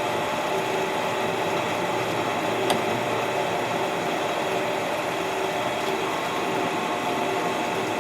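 Electric motor of a workshop machine running steadily with an even hum of a few fixed tones; one light click about a third of the way in.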